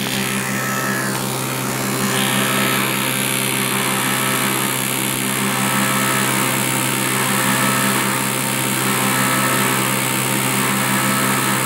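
Log lathe running, its spinning notching/smoothing cutter head shaving a rotating log: a steady machine drone under the hiss of cutting wood. The cutting grows a little louder about two seconds in.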